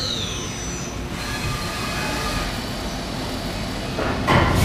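Mori Seiki DuraVertical 5100 CNC machining center running: a high spindle whine falling in pitch as the spindle slows, fading within the first half-second, then steady machine running noise, and a loud short burst of noise about four seconds in as the machine changes from the drill bit to the next tool.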